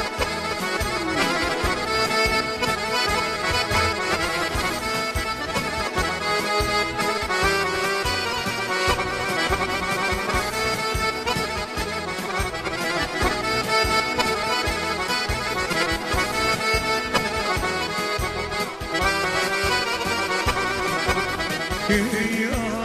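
Instrumental break of a folk song: an accordion leads the melody over a steady rhythmic beat.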